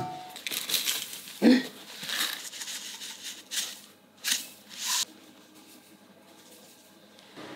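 Dried rosemary shaken out of a spice jar into a ceramic grinding bowl in three short shakes, after a few seconds of handling noises.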